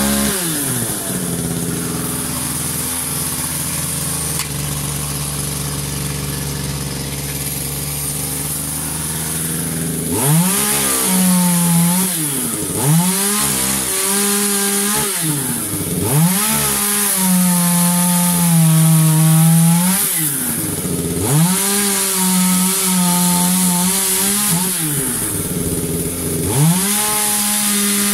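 Two-stroke chainsaw idling steadily for about ten seconds, then revved to high speed and let back down again and again while cutting wood, the engine note sagging under load during the longer cuts.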